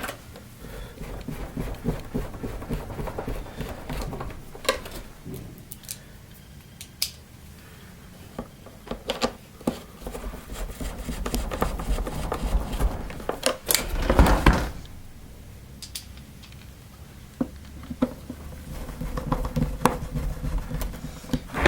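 Plastic parts of a Miele S5210 vacuum cleaner being handled and fitted back together by hand: scattered clicks and knocks, with a louder scraping rustle about two-thirds of the way through.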